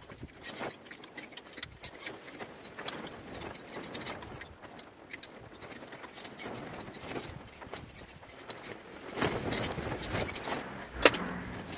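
Metal clicking and clinking of a spanner tightening the bolts on a Fordson Dexta tractor's steering column casting, a quick run of small ticks that gets busier and louder near the end, with one sharp clank just before it stops.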